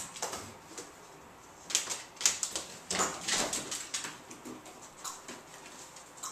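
Irregular clicks and knocks of a small dog's claws and nose against a wooden chair and a lidded plastic tub as it scrabbles up and noses into the tub, loudest about two and three seconds in.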